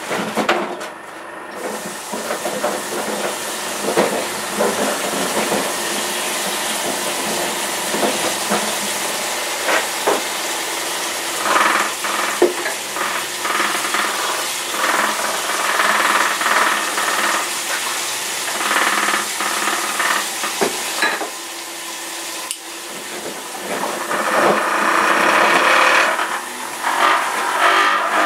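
Kitchen tap running and splashing as carrots are rinsed under it, with light knocks of handling at the sink; the splashing grows louder near the end.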